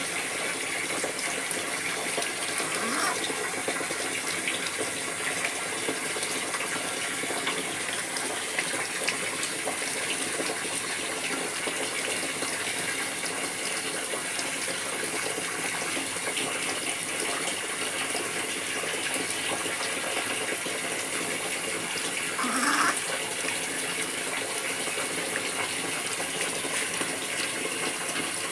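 Steady rush of running water, with the wet squelching of soapy hands lathering a baby monkey's fur. A brief squeak stands out about two-thirds of the way through.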